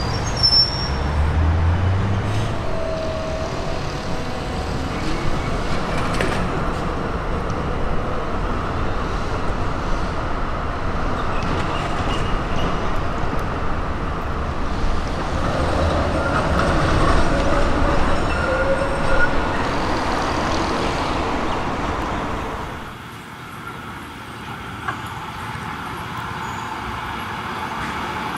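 Melbourne tram running along street track with road traffic around it: first a Z3-class tram moving off, then, after the sound drops noticeably about three-quarters of the way through, a quieter street with a B2-class tram approaching.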